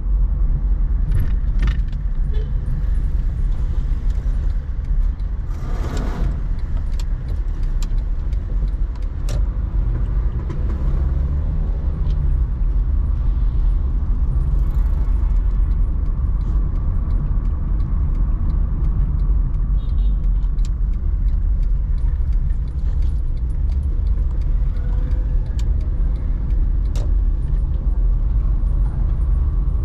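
A car driving, a steady low rumble of engine and tyre noise with a few sharp clicks scattered through it.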